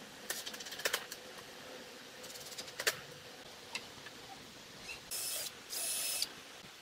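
Makita cordless drill running in two short bursts about five and six seconds in, drilling two holes into a pine rail. Before that come short runs of rapid ratcheting clicks.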